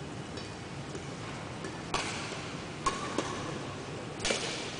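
Badminton rackets striking a shuttlecock in a rally: a few sharp hits about a second apart in the second half, ringing briefly in a large hall.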